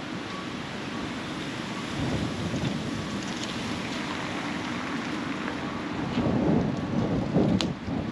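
Open-air rumble without any clear tone: a steady low noise that swells about two seconds in and again, louder, around six to seven seconds, with one sharp tick shortly before the end.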